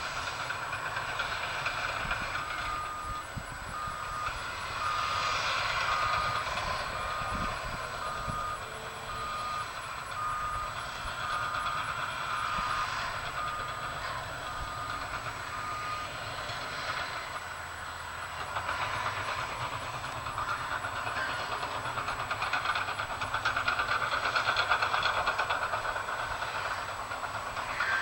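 Heavy earthmoving machinery running and working. A backup alarm beeps at an even pace, about three beeps every two seconds, starting a couple of seconds in and stopping about halfway through.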